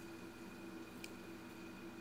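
Quiet room tone with a faint steady hum, and one faint click about a second in.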